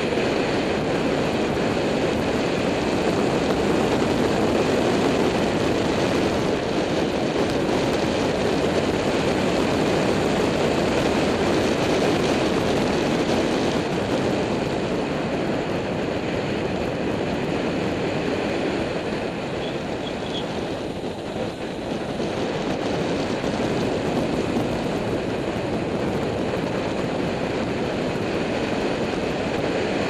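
Steady rush of wind over the microphone of a bike-mounted camera as a road bike descends at speed, easing slightly for a moment about two-thirds of the way through.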